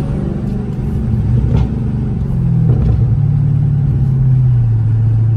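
Supercharged 6.2-litre Hemi V8 of a Dodge Charger Hellcat cruising at about 40 mph, heard from inside the cabin: a steady low drone through an exhaust with the mufflers and resonators cut out and the catalytic converters kept. The drone grows a little louder and settles to a steadier pitch about halfway through.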